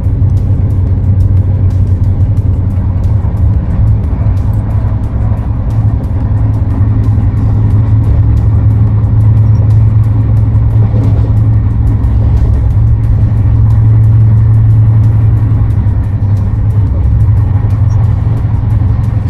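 Steady low rumble of an Indian Railways express train running at speed, heard from inside the coach, with faint scattered clicks over it.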